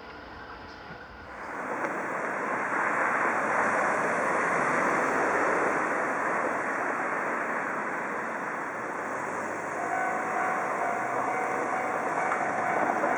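A train passing close by a railroad crossing: a loud, steady rushing noise of the train going by, which starts suddenly about a second in.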